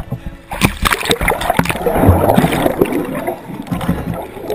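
Muffled rushing and gurgling of water around a camera moving underwater, with many irregular knocks and clicks.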